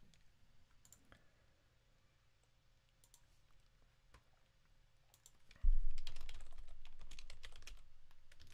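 Computer keyboard and mouse clicks: a few scattered taps, then a quick run of keystrokes. About five and a half seconds in comes a dull low thud, whose deep rumble dies away over the next few seconds.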